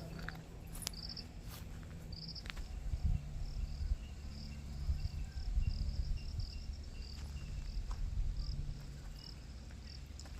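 Crickets chirping in short, evenly repeated pulses, about two a second, over a low steady hum and rumble.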